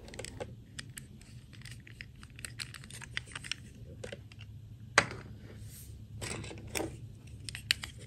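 Small plastic doll and its separate plastic dress shell being handled: irregular light clicks and taps of plastic on plastic and fingers, with one sharper click about five seconds in and a brief rustle soon after.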